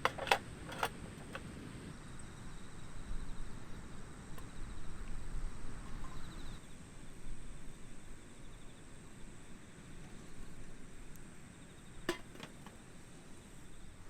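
Wind gusting with an uneven low rumble, rising and falling. A few sharp clicks or taps come at the very start and again about twelve seconds in.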